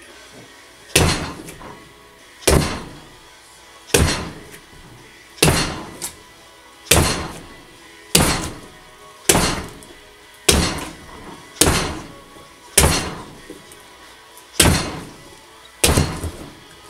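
A fist armed with a copper-plated 3D-printed resin one-finger knuckle punching a watermelon over and over. About a dozen sharp thuds come roughly every second and a half.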